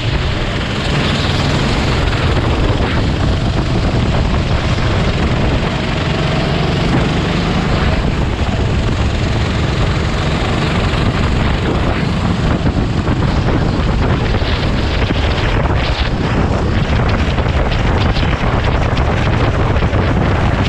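Engine of a Sodi RT8 rental kart, a 390 cc single-cylinder four-stroke, running steadily and loudly as the kart laps, heard from a camera mounted on the kart.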